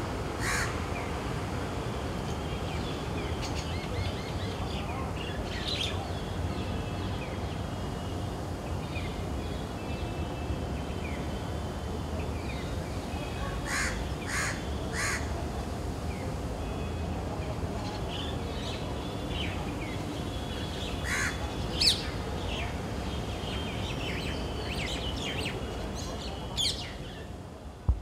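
Crows cawing in short bouts, one cluster of three harsh calls in quick succession about halfway through, with smaller birds chirping and a steady low background hum.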